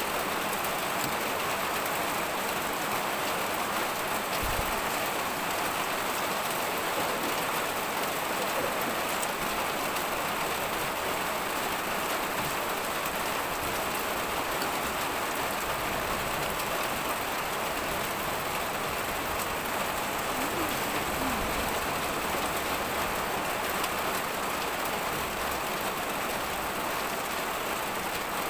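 A steady, even hiss without pauses or distinct strokes.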